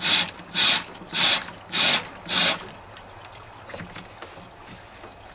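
Five short blasts of compressed air from an air-hose blow gun, about one every half second, forced through a 2001 GMC truck's heater core to flush out clogged coolant and debris.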